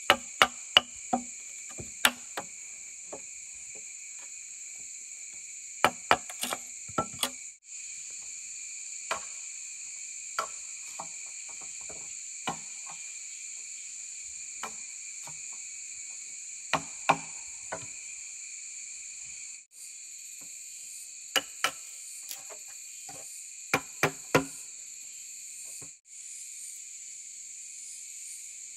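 A steady, high chorus of insects, breaking off for an instant several times. Over it come sharp knocks and taps of tool work on bamboo, singly and in quick clusters of two to five.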